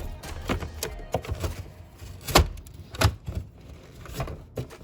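Knocks, taps and rustles of items being handled and taken out of a gift box, with the sharpest knock about two and a half seconds in and another about half a second later.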